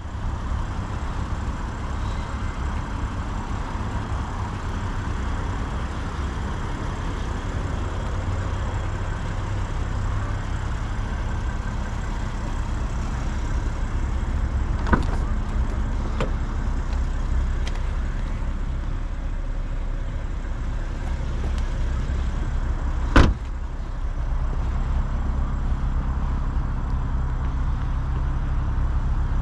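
BMW M240i xDrive's turbocharged inline-six idling steadily, with a couple of light clicks around the middle and one sharp knock about two-thirds of the way through.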